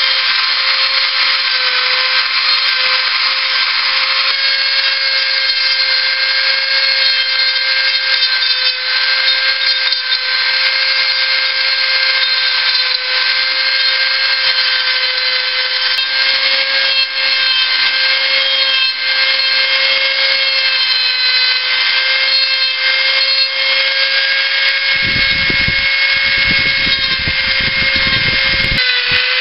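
Dremel rotary tool with a small cutting wheel running at a steady high-pitched whine, grinding dried primer out of a helmet's detail lines to roughen them before they are filled with Bondo. Low rumbling bumps come in near the end.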